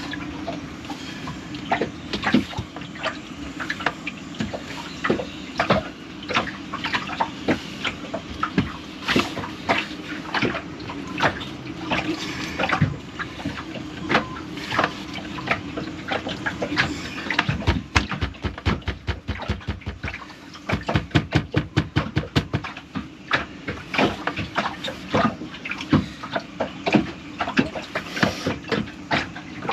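Repeated clicks and knocks of a manual bilge pump's parts being handled and worked to seat and thread onto each other, with a quick run of regular clicking in the middle. The part is not seating properly.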